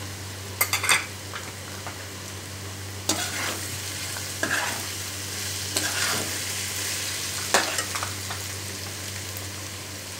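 Sausages and vegetables sizzling in a metal pan while a slotted metal spatula stirs them, scraping against the pan several times.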